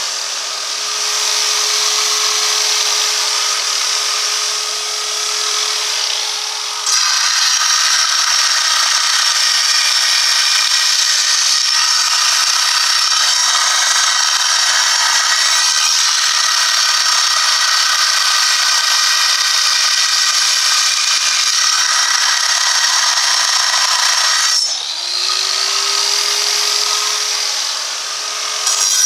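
Large angle grinder cutting stone. A steady motor whine with light grinding becomes, about seven seconds in, a louder, harsher grind as the disc bites into the block and the motor slows under load. Near the end the disc comes free and the whine rises as the motor spins back up, then it bites in again right at the end.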